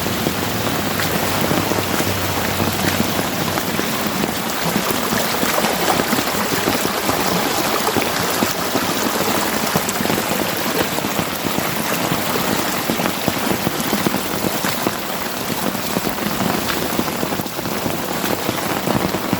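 Steady rain falling on the ground and on floodwater, a dense even hiss of drops.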